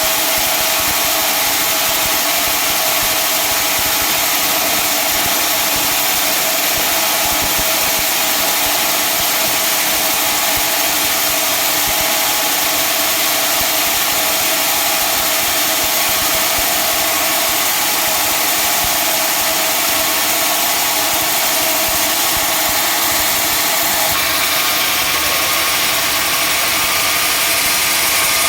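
Sawmill machinery running steadily, an engine-driven mill giving a loud, even machine noise; the sound shifts slightly near the end.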